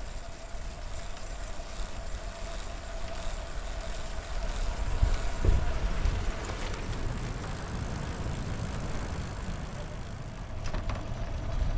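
Recumbent trike rolling along a paved trail: steady road and wind rumble with irregular low knocks, the loudest about five and a half seconds in, from the trike's windshield banging at its bottom mount. A faint steady whine runs under it.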